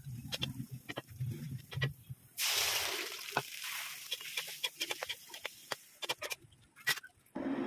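Crackling of hot oil with garlic frying in a wok. About two seconds in, cubed pork goes into the oil and sets off a sudden loud sizzle that slowly dies down, with sharp pops and crackles through it.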